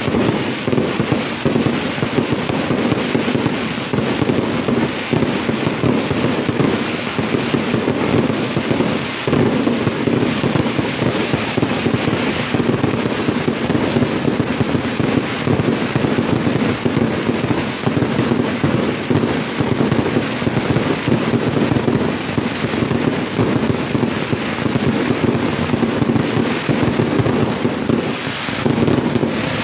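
Fireworks display at full intensity: a dense, unbroken run of bangs and crackling from many aerial shells and comets bursting at once.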